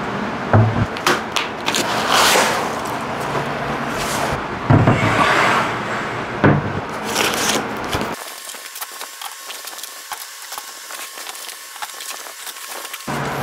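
Unpacking noise from CNC machine parts: aluminium rails and gantry pieces are set down and slid on a wooden bench with knocks and scrapes, and cardboard boxes and foam packing rustle. About eight seconds in the sound turns thin, with no low end, and carries quick light clicks and rustles.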